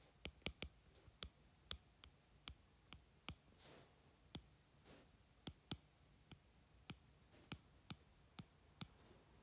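Faint, irregular clicks of a stylus tip tapping a tablet's glass screen during handwriting, about two a second.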